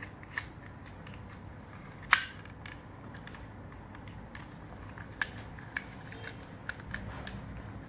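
Plastic parts and cables being handled and pushed into place in an electrical gang box: scattered sharp clicks and taps, one loud click about two seconds in and a few lighter ones later, over a faint low hum.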